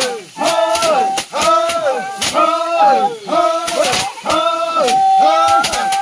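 Men's voices in a rhythmic chant, a short sung phrase repeated about every half second, with sharp strikes among the phrases.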